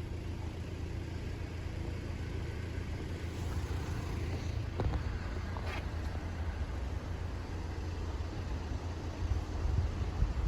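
Steady low rumble with a faint click about five seconds in.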